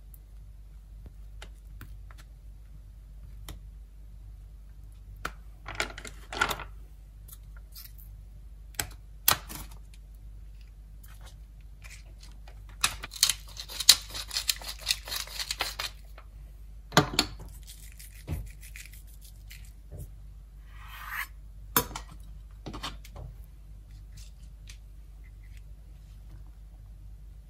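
Wooden pepper mill grinding for about three seconds midway, a gritty crackling with rapid clicks. Around it, scattered light knocks and short scrapes of food being handled with a spoon on a wooden cutting board.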